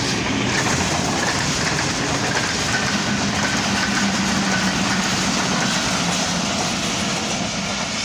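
Passenger train's coaches rolling past on the rails: a loud, steady rumble of wheels and carriages.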